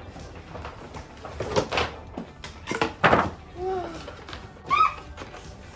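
Cardboard doll boxes being opened: lids scraping and sliding off with rustling, loudest about three seconds in, and two short squeaks shortly after.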